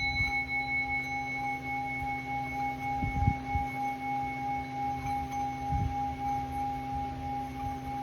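Small hammered Tibetan singing bowl singing: a sustained ringing tone with several pitches sounding together, held steady with a slow waver. A few faint low thuds come about three and six seconds in.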